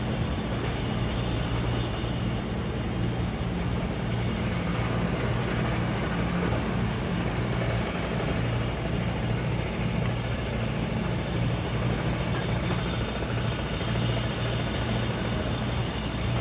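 Helicopter running steadily, a constant low engine and rotor drone.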